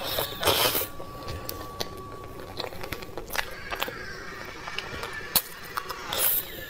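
Close-miked eating of soft layered cream cake from a plastic box: sharp clicks and two short scrapes of the spoon against the plastic, with soft mouth sounds.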